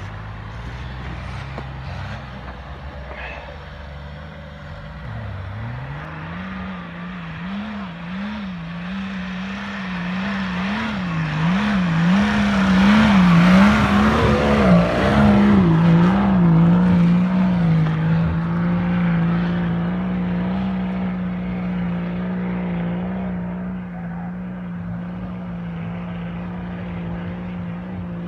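Engine of a BMW-engined Nissan Patrol 4x4 pushing through deep snow, its revs rising and falling about once a second as the tyres spin, with snow hissing off the wheels as it passes close. Then it holds a steady note and fades as it pulls away.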